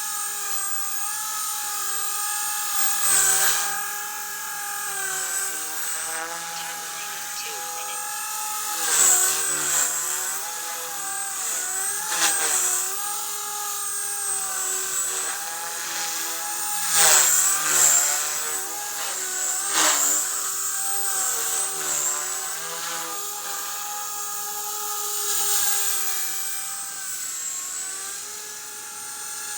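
Blade 180 CFX electric micro RC helicopter flying 3D: a steady pitched whine from the motor and rotor head that dips and recovers in pitch several times as the blades are loaded in hard manoeuvres, each dip with a louder swoosh of the main blades.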